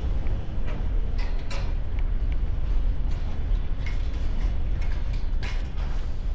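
Wind buffeting the microphone in a steady, heavy low rumble, with a few scattered light clicks and knocks.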